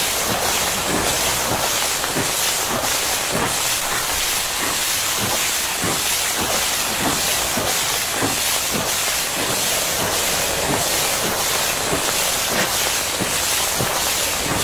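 Steady hiss of a pressure-washer jet spraying a road sign, with a faint pulse about two to three times a second.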